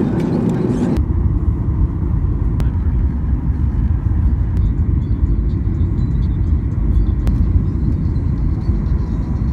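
Deep, steady rumble of a jet airliner heard from the cabin, with a change in the sound about a second in.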